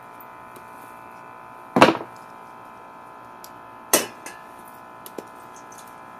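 Two sharp knocks about two seconds apart, then a couple of light clicks, as a screwdriver and small metal carburetor parts are set down on a plastic table and handled over a metal drain pan. A steady buzz runs underneath.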